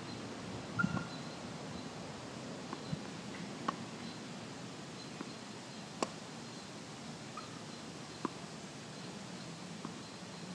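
Tennis racket striking a tennis ball with a sharp pock about six seconds in, among a few fainter knocks of racket and ball contacts. Short bird chirps sound now and then in the background.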